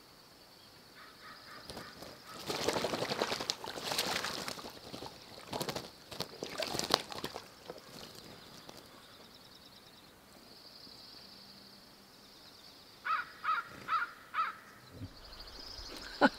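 A hawk bathing in a shallow pan of water, splashing and flicking water with its wings in bursts during the first half. Near the end a bird calls four times in quick succession.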